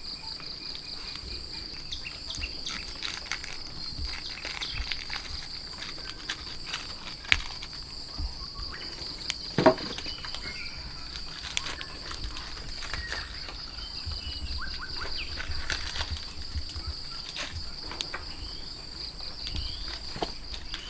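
Insects trilling steadily in a high, continuous drone, with scattered light clicks and knocks, the loudest about halfway through.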